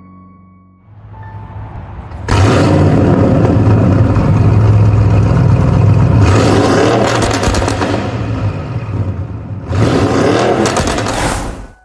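Audi RS6 Avant's twin-turbo V8 running loud with a deep exhaust note, coming in about two seconds in and revved up twice, around six seconds and near ten seconds; it cuts off abruptly just before the end.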